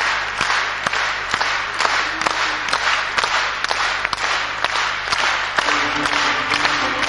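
Concert-hall audience clapping in rhythmic unison, about two claps a second. About six seconds in, pitched music starts under the clapping.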